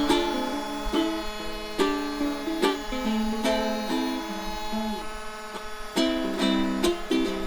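Ukulele music: a tune of plucked notes with sharp attacks, each ringing briefly.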